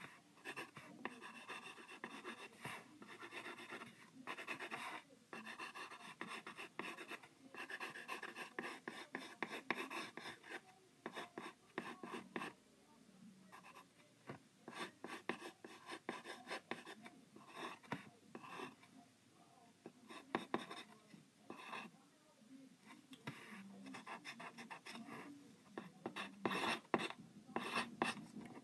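Wooden graphite pencil scratching on paper in many quick, short sketching strokes with brief pauses between them.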